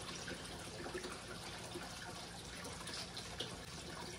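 Water trickling steadily in a fish pond, with a few small drips and light splashes.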